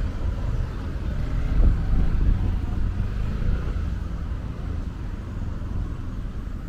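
Sea wind buffeting the microphone: a steady, uneven low rumble with no distinct events.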